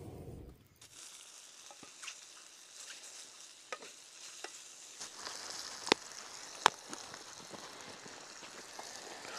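Food frying in a small pan over a wood fire: a steady sizzle, with a few sharp clicks, the two loudest about six and seven seconds in.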